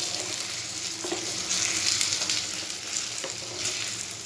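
Orange segments sizzling in hot caramelized sugar syrup in a tawa, being stirred with a spatula that gives small scrapes and clicks against the pan. The sizzle is a little louder about halfway through.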